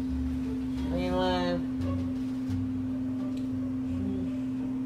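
A steady low hum at one pitch, with a short high-pitched vocal sound about a second in.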